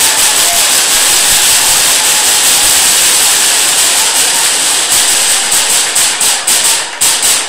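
Spectators applauding close to the microphone after a goal: a dense, steady sound of many hands clapping that thins into separate claps near the end.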